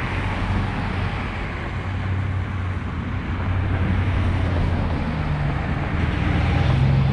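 An engine running steadily at idle: a constant low hum, with a slightly higher tone joining near the end.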